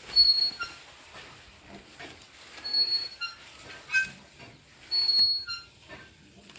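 A bird's short, high whistled call, given three times about two and a half seconds apart, with softer chirps between.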